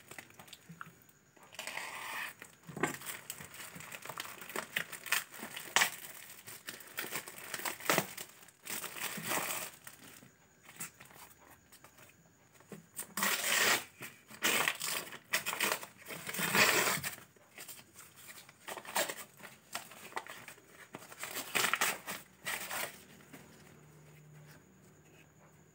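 Clear plastic bag crinkling as it is handled and pulled off a parcel, then a brown paper envelope rustling and tearing as it is opened, in irregular bursts that die away a few seconds before the end.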